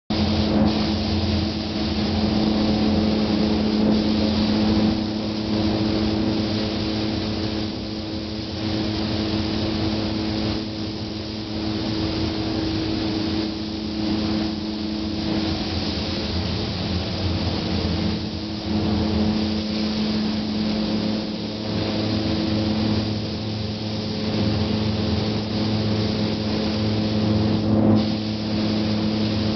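Spray gun hissing as clear coat is applied, the hiss easing off briefly every few seconds between passes, over a steady motor hum.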